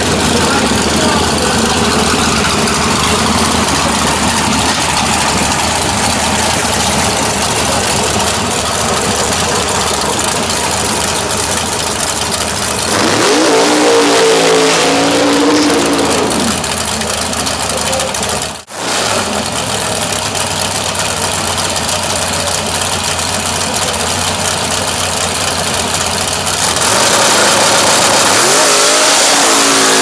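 Dragster engine with open exhaust headers running loud and rough, revved up and back down once in the middle. Near the end it is held at high revs, louder, as the car does a burnout.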